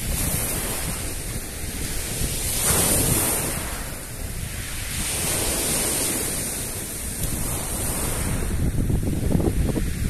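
Sea waves breaking and washing in at the shoreline, the surf swelling louder twice, about three seconds in and again near the end. Wind buffets the microphone with a low rumble.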